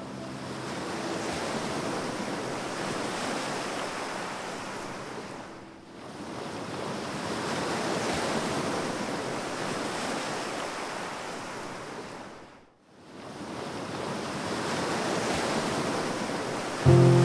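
Steady, even rushing outdoor noise of wind or surf, in three stretches that each fade away and back in, about six and thirteen seconds in. Music comes in at the very end.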